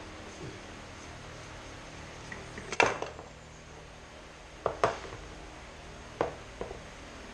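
A few sharp clinks and knocks of hand tools or parts being handled, the loudest about three seconds in, over a low steady hum.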